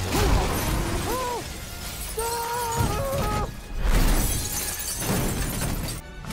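Film fight sound effects: glass shattering and metal crashing as a school bus is blasted, with heavy low booms just after the start and again about four seconds in, and a few short pitched whines in between.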